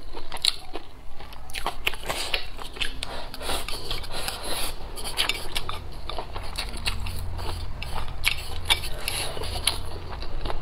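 A person chewing a mouthful of fried rice with many small, irregular wet mouth clicks, while wooden chopsticks scrape and tap against a ceramic bowl.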